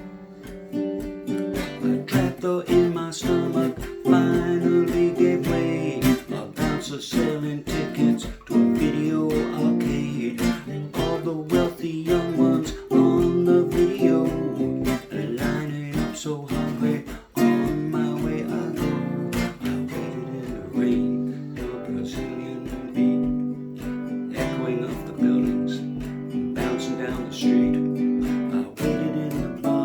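Acoustic guitar strummed in a steady rhythm, playing the song's instrumental break without vocals.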